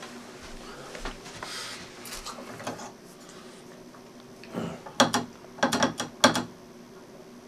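Candlestick telephone being handled: the receiver is lifted and the switch hook is worked, giving a quick run of sharp mechanical clicks and rattles about five to six seconds in, after some faint handling rustle.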